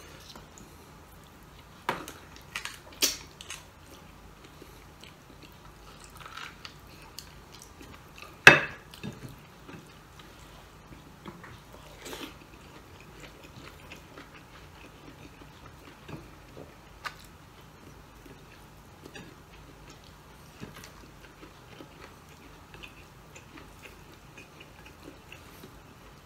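Eating sounds of a person eating meat and rice by hand: chewing and biting, with scattered sharp clicks and knocks, the loudest about eight and a half seconds in.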